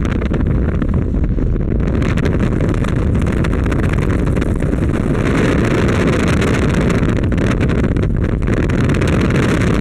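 Wind noise from riding a motorcycle at speed: a loud, steady rush of wind buffeting the microphone, with road noise underneath.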